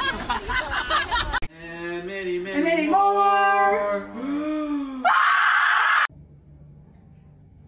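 Excited, overlapping voices for about a second and a half. Then a single voice sings in long held notes for about three seconds. A loud breathy burst of voice lasts about a second and cuts off suddenly into a faint low hum.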